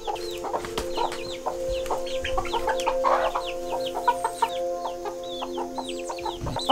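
Baby chicks, Silkies among them, peeping in a brooder: a constant stream of short, high cheeps, each sliding down in pitch, several to the second.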